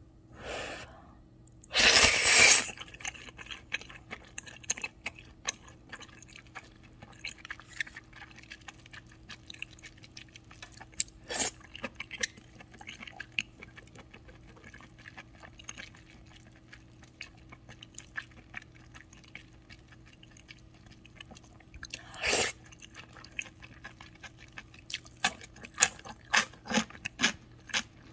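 Close-miked eating of udon: slurps about 2 s in and again about 22 s in, with chewing heard as many small wet clicks and smacks in between. A run of louder, crunchier bites comes near the end.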